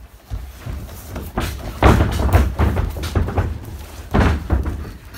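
Bodies thudding and scuffling on a wrestling ring's mat as two grapplers scramble, in irregular heavy thumps, loudest about two seconds in and again near four seconds.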